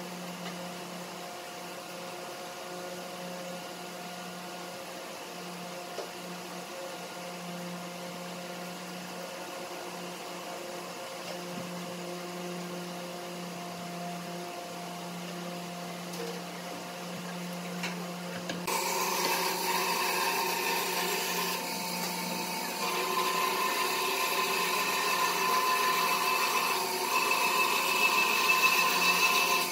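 Steady motor hum made of several even tones. About two-thirds of the way in it becomes suddenly louder and brighter, and it changes pitch a couple more times after that.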